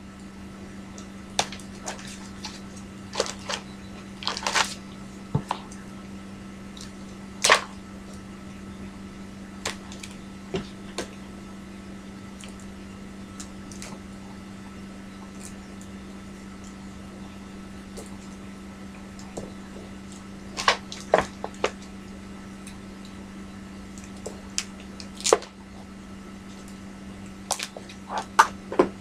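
Cardboard game boards and components being handled: scattered taps, clacks and rustles, busiest near the start and again about two-thirds of the way through, over a steady low hum.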